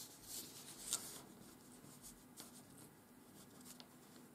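Faint rustling and crinkling of a sheet of office paper as fingers crease and smooth an origami fold, with a few light crackles, the sharpest about a second in.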